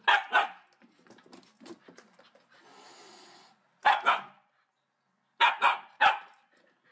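Husky puppy barking in short runs of two or three quick barks.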